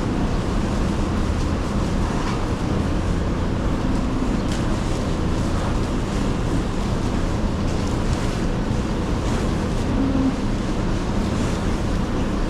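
A steady low engine rumble with a faint hum, running evenly throughout.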